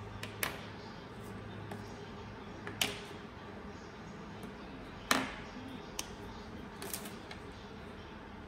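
A handful of short, sharp clicks and taps, about five in all, the loudest about five seconds in, over a faint steady room hum.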